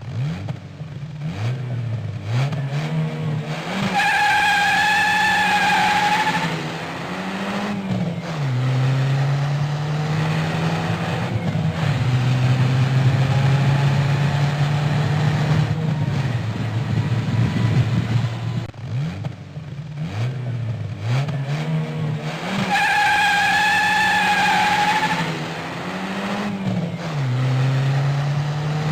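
Car engine revving up, with a high squeal over the revs for about two seconds, then a rev that rises and falls before the engine settles into a steady idle. The same sequence starts again about twenty seconds in.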